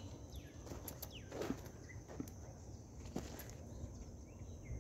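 Faint open-field ambience: birds chirping now and then over a steady high insect buzz, with a few soft knocks.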